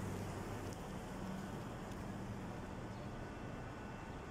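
Steady city background noise: a low hum and rumble of distant traffic.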